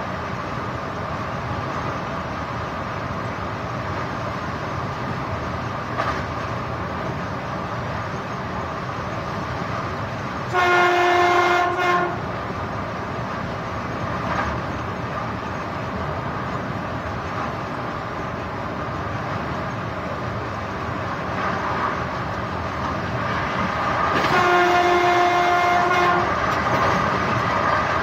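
Train horn sounded twice, about ten seconds in and again some thirteen seconds later, each blast one pitched tone with overtones lasting about a second and a half. Beneath it runs the steady running noise of the train on the rails.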